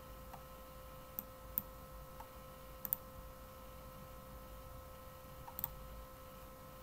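Several faint, sharp computer mouse clicks, scattered and partly in quick pairs, over a faint steady hum.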